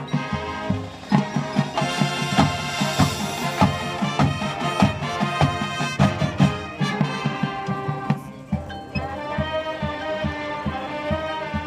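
High school marching band playing in a field show: brass sustaining chords over drumline hits. After about 8 s the drumming thins out and the brass holds chords.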